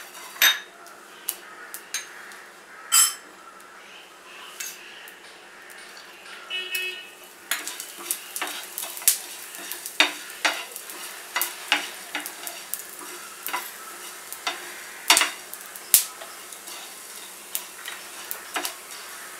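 Whole coriander seeds being dry-roasted in a nonstick pan and stirred with a spatula: repeated strokes of the spatula scraping the pan and seeds rattling against it, over a faint steady hiss. The strokes come more often after about seven seconds.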